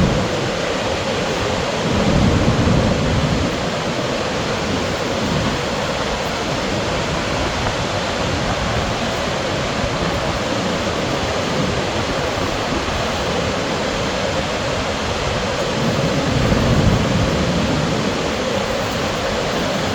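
Steady rushing of a large waterfall in flood: the Orange River pouring over Augrabies Falls, with deeper low surges about two seconds in and again near the end.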